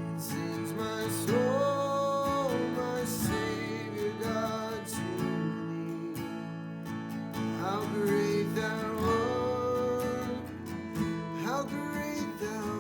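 Worship music: an acoustic guitar strumming chords, with a held melody line above it that slides between notes.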